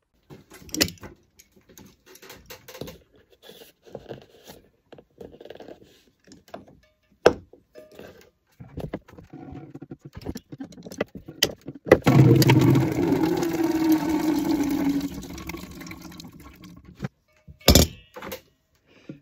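Small clicks and scrapes from handling a plastic water supply pipe and cutter, then, about twelve seconds in, water suddenly rushing out of the freshly cut main supply line into a bucket for about five seconds, tapering off as the line drains. A sharp knock near the end.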